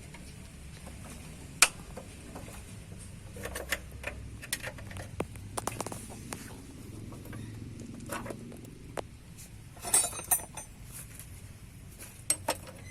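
Irregular light clicks and knocks of objects being handled, with a brief burst of rattling clinks about ten seconds in.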